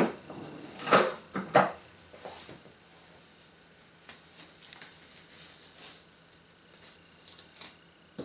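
Handling noises as blue disposable gloves are fetched and put on: a few sharp knocks and rustles in the first two seconds, then faint, scattered rustling and small ticks, and one short click near the end.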